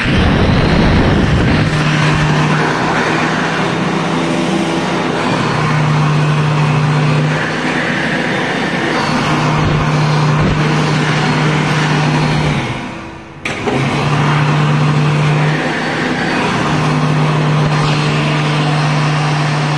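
World Dryer model XA hand dryer running: a loud steady rush of air from its fan with a motor hum under it. About thirteen seconds in it runs down and stops, then is started again straight away and runs on.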